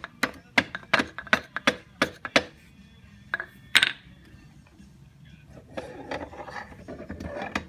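Light metallic taps on the steel rear axle sprocket of a Suzuki LTZ 400 ATV, about three a second and then two more, knocking it loose on its splined axle. Near the end the sprocket rattles and scrapes as it slides off the splines.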